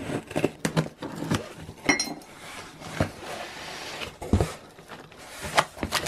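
Scissors slitting the packing tape on a cardboard box, then the box flaps pulled open: a series of cardboard scrapes, clicks and knocks with some paper rustling, and a dull thump about four seconds in.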